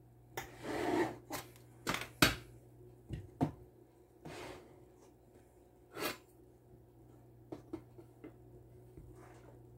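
A loaf of soap slid into a wooden soap-cutting box and knocked into place, with the steel cutter blade handled against the box: a short scrape, then a string of light knocks and clicks, the sharpest a little over two seconds in, and a few small ticks near the end.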